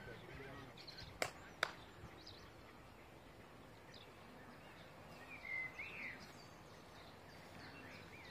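Faint outdoor background with a few short bird chirps, most of them in the middle. Two sharp clicks, close together, come just over a second in and are the loudest sounds.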